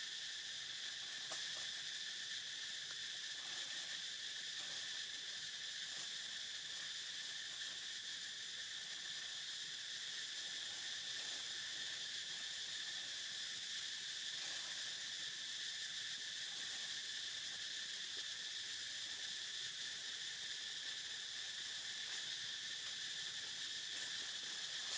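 Insects chirring in a steady, high-pitched chorus that never breaks, with a few faint ticks here and there.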